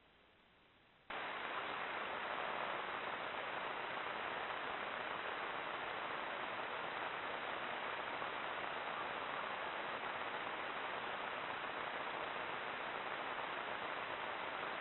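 Steady hiss from a Browning trail camera's microphone, starting abruptly about a second in after near silence.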